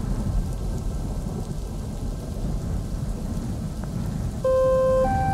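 Recorded rain and rolling thunder used as a break in an electronic track, with faint sustained tones behind it. About four and a half seconds in, a synth melody of held, stepping notes comes in and the sound grows louder.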